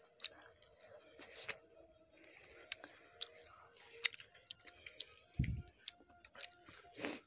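Close-up eating sounds: chewing and lip-smacking on smoked chicken fry and rice eaten by hand, heard as a run of sharp wet mouth clicks. A dull thump comes about five seconds in.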